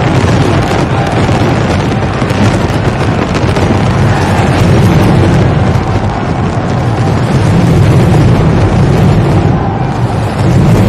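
A dense fireworks barrage: many overlapping booms and crackling bursts merging into one continuous rumble, with no gaps between shots.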